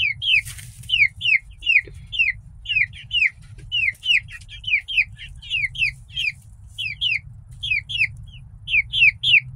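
Young chickens peeping over and over: short, high cheeps, each sliding down in pitch, about three a second.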